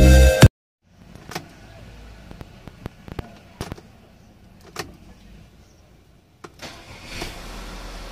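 A few light clicks and knocks, then about six and a half seconds in the Volkswagen Tiguan's 2.0-litre petrol engine starts and settles into a steady idle at about 1000 rpm.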